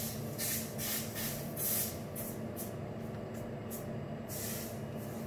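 Sugar sizzling and hissing as a hot caramelizing iron is pressed onto a sugared cake top to burn it into a crust, in short irregular bursts. A steady low hum runs underneath.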